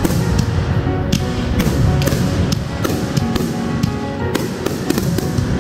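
Aerial fireworks bursting in a string of sharp bangs, over music with held notes.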